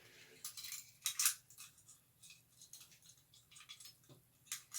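Scattered light metal clicks and taps of old padlocks and their keys being handled, a few sharp clicks about a second in and again near the end.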